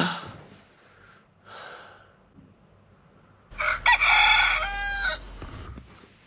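A rooster crowing once, about three and a half seconds in: a single cock-a-doodle-doo of under two seconds that ends in a few short stepped notes.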